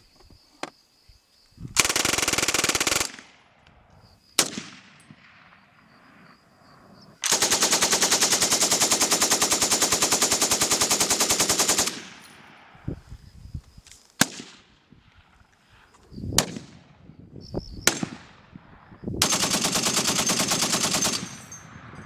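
Fully automatic gunfire from military small arms, among them an Uzi-type submachine gun and a belt-fed machine gun. It comes as a burst of about a second and a half, a single shot, a long burst of nearly five seconds, four single shots spread apart, then a burst of about two seconds near the end.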